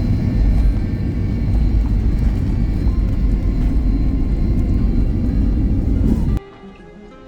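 Loud steady rumble of a jet airliner's engines and airflow, which cuts off abruptly near the end. Quieter plucked-string music takes over after the cut.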